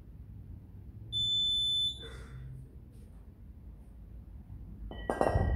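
A single electronic beep from the gym interval timer, held for just under a second, marking the end of the kettlebell set. Near the end, the pair of kettlebells is set down on the floor with a loud clank and a short metallic ring.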